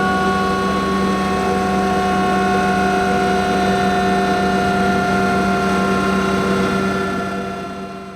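Yamaha MT-07 on a dyno, its rear wheel, drivetrain and roller running with a steady whine that drops slowly in pitch, then fades out near the end as it spins down.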